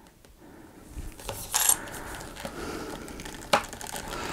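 Handling of a large Michelangelo action figure while its arm and hand are posed: low rubbing and fumbling, with a short sharp rattle about a second and a half in and a single click about three and a half seconds in.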